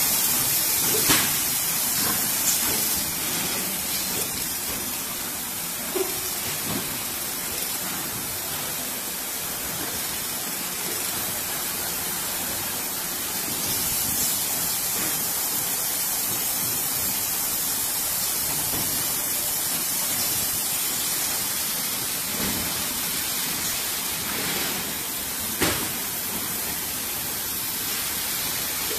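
A piston filling machine for 5 L motor oil at work: a steady hiss with a few sharp clicks scattered through it.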